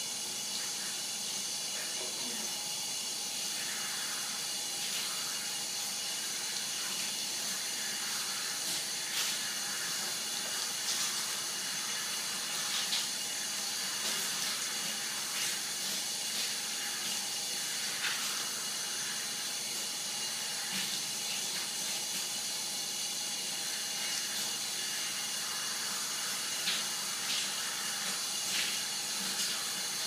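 Thin stream of water running from a bathtub faucet, a steady hiss, with scattered short ticks and splashes as the stream hits the bird and the tub.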